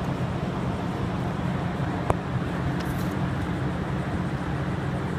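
Steady low mechanical hum, like an engine or machinery running in the background. A single sharp click comes about two seconds in as an automotive relay is pulled from its socket under the dash, with a couple of faint ticks just after.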